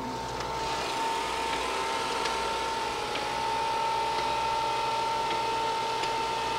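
Heald Model 74 internal grinder running with a steady hum and a constant whine. The sound grows somewhat louder within the first second as the grinding spindle is started. A few faint ticks come through.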